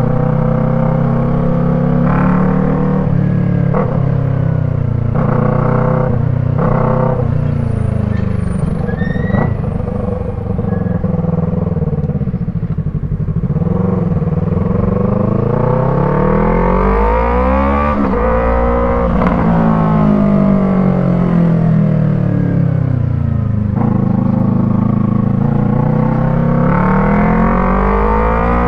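Yamaha MT-03 parallel-twin engine running through an aftermarket Arashi sport exhaust with its dB killer fitted. The revs hold fairly even with a few brief interruptions for the first ten seconds, then rise and fall in long sweeps of several seconds each.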